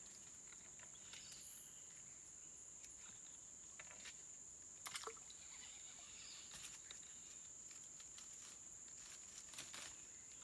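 Insects calling faintly in one steady high-pitched drone, with a few small clicks and knocks.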